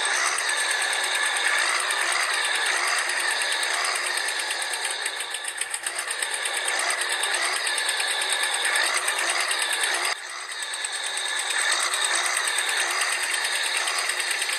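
The small electric motors and gearboxes of toy tractors whir and buzz steadily under load, their pitch wavering as they strain to pull. The sound drops suddenly about ten seconds in and then builds again.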